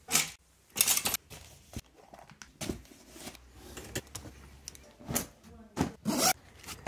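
Packing noises: a string of short rustles and knocks as clothing and gear are handled and pushed into a travel bag, then a zipper pulled on the bag near the end.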